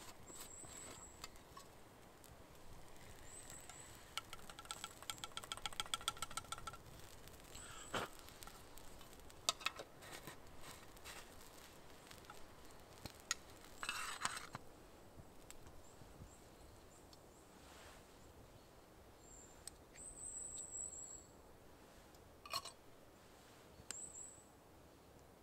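Small birds giving high, thin calls again and again, with a quick run of clicks a few seconds in and a few scattered knocks.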